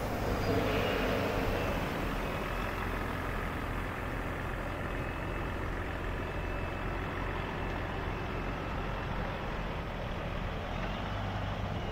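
Double-decker coach's diesel engine idling with a steady low hum, under an even rushing noise.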